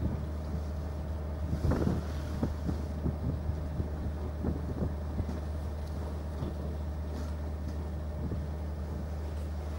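Steady low drone of a ship's machinery, with a cluster of knocks about two seconds in and lighter taps and rustles over the next few seconds as a rope rescue net with plastic floats is packed into its container.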